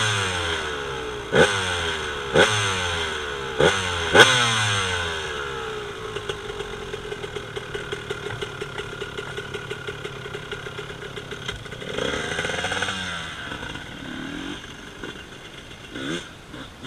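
1999 Honda CR125's single-cylinder two-stroke engine, through a Pro Circuit Platinum expansion chamber and R304 silencer, blipped sharply about five times in the first few seconds. Each rev falls quickly back, and the engine then settles into a steady idle. It is revved again about twelve seconds in and blipped a few more times near the end.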